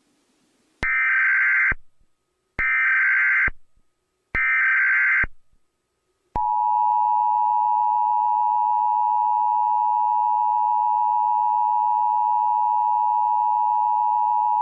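Emergency Alert System tones: three short bursts of SAME header data tones, each just under a second, then the long steady two-tone attention signal for about eight seconds, cutting off abruptly. The sequence announces an emergency alert, here a civil danger warning.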